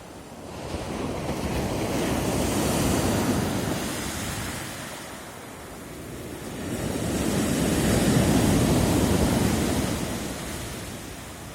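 Sea surf: two waves swell and wash in, the first cresting about three seconds in and a louder one about eight seconds in, each fading away afterwards.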